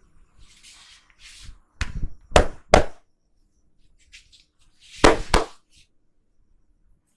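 Hands striking a person's head and neck in a percussive massage: a soft rubbing rustle, then three loud slaps in quick succession and, a couple of seconds later, two more close together.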